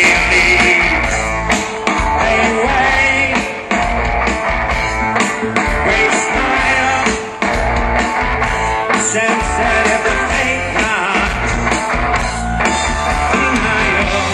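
Indie rock band playing live through a festival PA: electric guitars, bass and drum kit, heard from the crowd.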